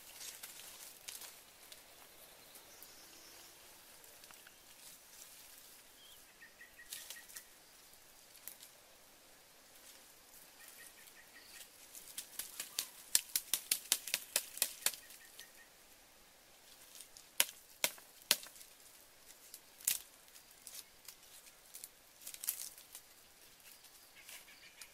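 Dry sticks and twigs snapping and crackling at a small smoky wood fire as it is fed with sticks. A quick run of sharp snaps comes about halfway through, then a few single snaps later.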